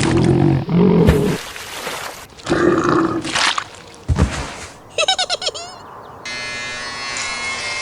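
A run of cartoon sound effects: low animal grunts, a thud, and a quick burst of squeaky chirps. After that comes a steady electric buzz like hair clippers running, heard from a little over six seconds in.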